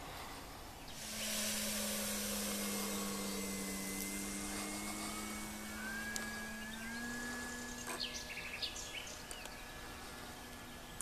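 E-flite Carbon-Z electric RC model airplane in flight. Its motor and propeller drone steadily from about a second in, with a higher whine above them. The pitch steps up slightly about seven seconds in.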